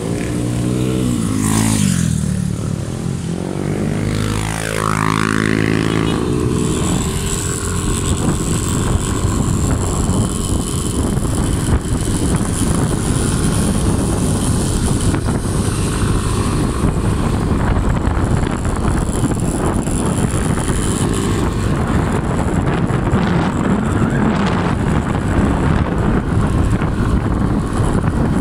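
Small motorcycle engine under way while riding, its pitch rising and falling over the first few seconds as it accelerates and eases off, then a steady rush of engine and wind on the microphone at cruising speed.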